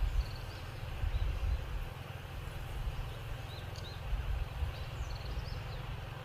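Low, gusting wind rumble on the microphone outdoors, with a few faint, very short high chirps of small birds scattered through it.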